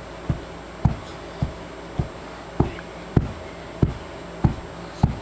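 A child's bare feet thumping on a carpeted floor in a steady beat, about nine dull thumps, one every half second or so.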